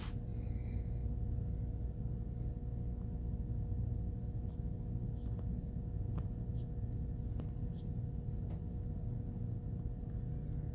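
Steady low room hum with a faint constant tone above it, and a few soft scattered clicks.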